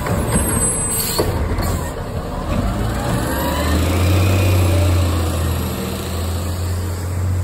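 Automated side-loader garbage truck's diesel engine pulling away and passing close by, with a short hiss about a second in and a rising whine as it speeds up; the low engine note grows louder over the second half.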